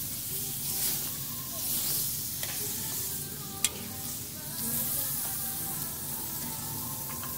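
Sliced meat sizzling steadily on a tabletop Korean barbecue grill, with a sharp click about three and a half seconds in.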